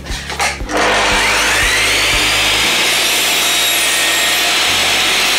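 Mitre saw starting about a second in. Its motor rises to a steady high whine as the blade cuts through a length of skirting board.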